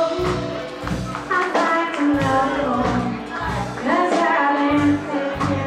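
Live blues-rock band performing, with a woman singing lead over drums and band accompaniment.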